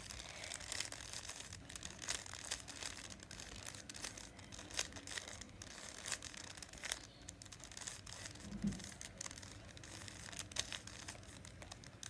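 Plastic 3x3 Rubik's cube being scrambled by hand. The layers turning give a faint, irregular run of quick clicks and clacks.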